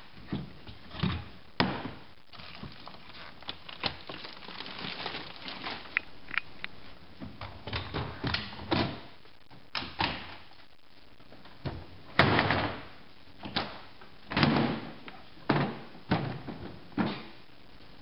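Hard plastic walls of a collapsible plastic pallet box being unlocked and folded down. It makes a string of separate knocks, clacks and thuds, with the loudest bang about two thirds of the way through.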